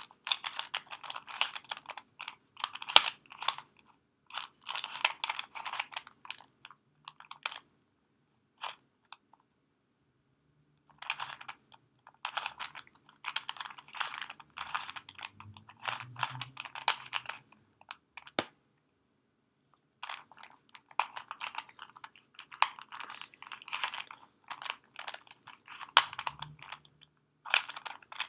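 Plastic Rubik's cube being twisted layer by layer, a rapid clicking clatter in spells of several seconds broken by two short pauses.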